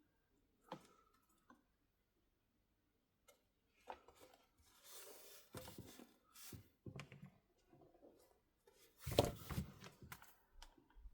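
Faint handling of a tablet on a workbench: scattered small clicks and taps, a brief rustle about five seconds in, and a louder knock about nine seconds in.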